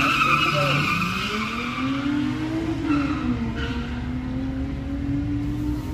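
Two cars launching off a drag-strip start line: a brief tyre squeal at the launch and an engine revving hard, its pitch climbing for about three seconds, then dropping and settling into a steadier drone as the cars pull away down the strip.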